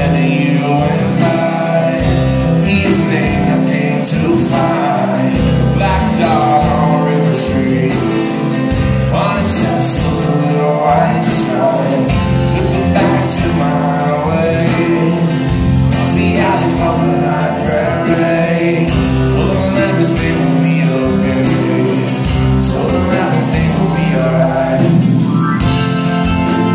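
Live rock band playing a song: acoustic guitar, electric bass, keyboards and drums, steady and loud through the club's sound system.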